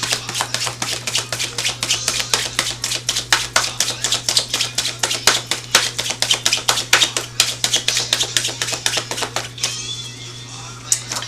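A tarot deck being shuffled by hand: a rapid run of crisp clicks and slaps as the cards riffle against each other. It stops about ten seconds in.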